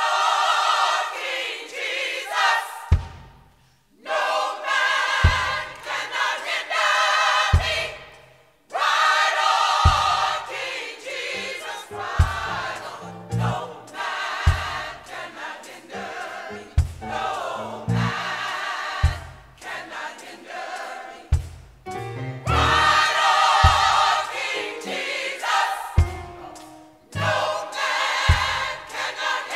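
Gospel choir singing with heavy vibrato, over low bass or drum thumps. The singing breaks off briefly about four seconds in and again near nine seconds.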